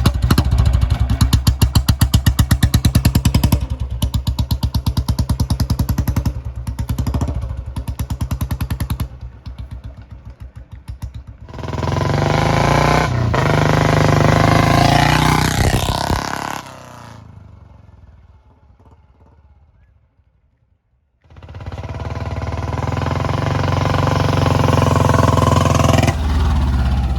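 Royal Enfield Bullet 350 Electra's single-cylinder engine riding past with its dug-dug exhaust beat: evenly spaced thumps at first, then a louder, denser run, fading away about two-thirds through and coming back strong near the end.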